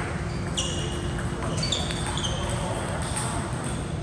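Sneakers squeaking on an indoor court floor: several short, high squeaks scattered through the moment, over a steady low rumble of the hall.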